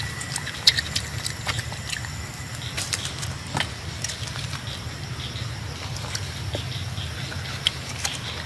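A macaque chewing fruit close up: scattered soft clicks and smacks over a steady low hum.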